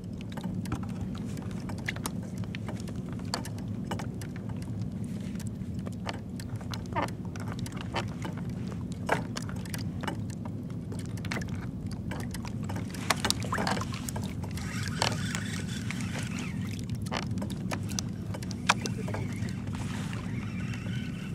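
Kayak moving over choppy water: frequent sharp slaps and splashes of water against the hull over a steady low rumble.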